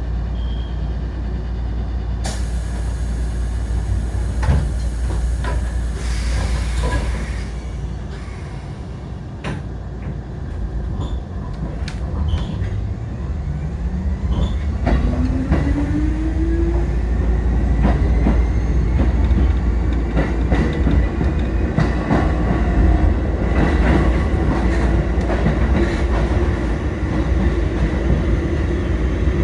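Kotoden 1080/1100 series electric train pulling away from a station: after a hiss of air about two seconds in, the traction motors' whine rises steadily in pitch as the train accelerates, then levels off, with wheel and rail clicks underneath.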